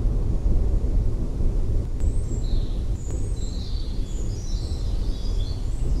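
Birds chirping in quick, high, gliding calls from about two seconds in, over a steady low rumble of a storm.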